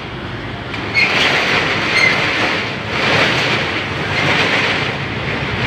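Manual corrugated steel roll-up shutter door being pushed up by hand, its slats rattling steadily as they roll onto the drum, with a few louder surges.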